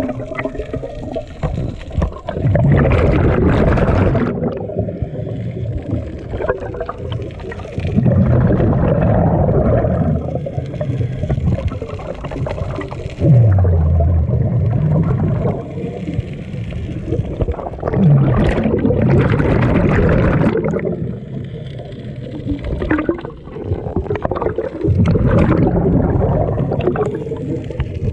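A scuba diver breathing through a regulator underwater, heard through the camera housing. A rushing, bubbling surge of exhaled air comes about every five seconds, with quieter inhalations between.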